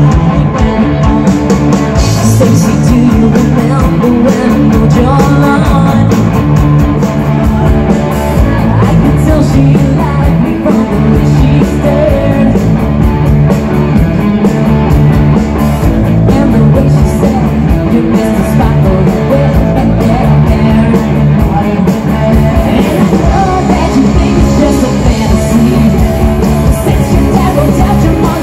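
Live rock band playing through a PA system: electric guitars and drums with a singer, loud and continuous.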